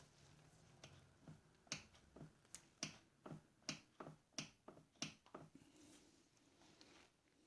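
About a dozen light, sharp clicks at a slightly uneven pace of two to three a second, from the carriage of a South Bend 9 Model A lathe being worked by hand; they stop a little after halfway.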